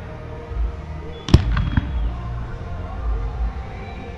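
Aerial fireworks: one shell bursting with a single sharp boom about a second in, followed by a few quieter pops.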